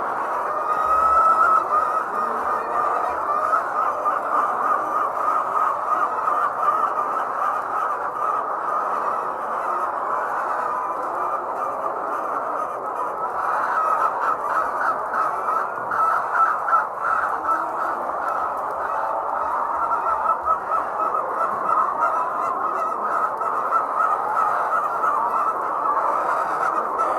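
A large flock of layer hens clucking and squawking together in a steady, dense din of many overlapping calls.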